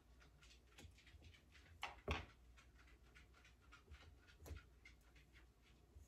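Faint scraping and soft clicks as thick cream is wiped off hand-mixer beaters over a saucepan, with a sharper knock about two seconds in and another near four and a half seconds.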